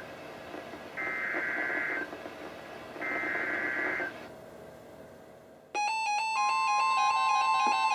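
EAS/SAME digital header of a NOAA Weather Radio warning: one-second bursts of warbling data tones, repeated with one-second gaps. About six seconds in, an electronic alert with quickly stepping tones starts abruptly and is joined by a steady high tone, the weather radio warning alarm.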